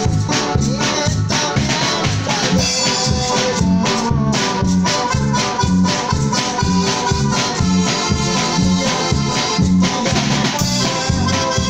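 A small live band playing a Latin dance-style tune: a Roland Juno-Stage keyboard carrying the melody over electric guitar and bass, with timbales, bass drum and a shaker-like rattle keeping a steady beat.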